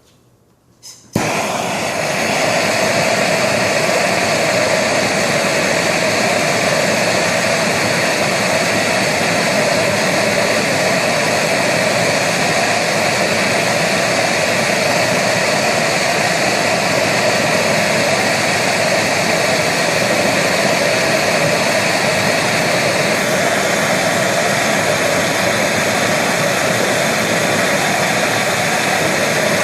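Gas soldering torch lit with a click about a second in, then burning with a loud, steady hiss while heating a copper pipe joint.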